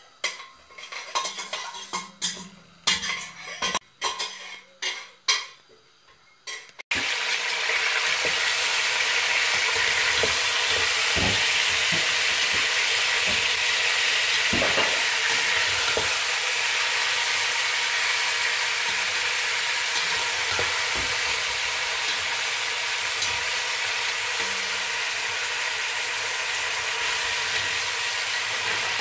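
Several seconds of separate clinks and knocks of a spoon working in a stainless steel pot. Then, from about seven seconds in, the steady sizzle of chicken pieces frying in oil in the pot, with an occasional scrape as a spatula turns them.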